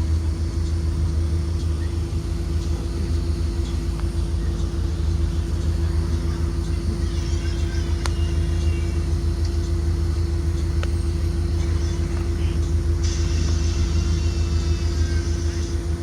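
Ride noise inside a 2023 Blue Bird Vision school bus: the steady low drone of its Ford 7.3 L V8 and the road rumble while under way, with a constant hum over it. A higher hiss comes in suddenly about thirteen seconds in.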